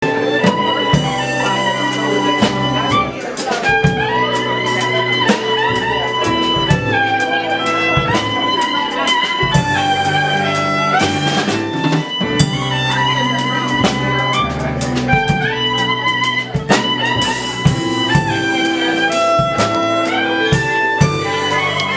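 Instrumental music with horns, strings and a drum kit keeping a steady beat, its melody stepping between held notes.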